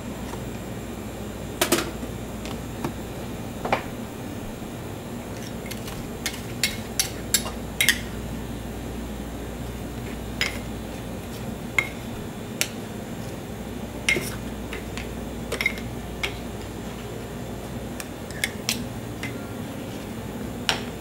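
Metal spatulas clinking and scraping on a chilled ice cream mixing plate as ice cream is worked, with sharp clinks at irregular intervals over a steady low hum.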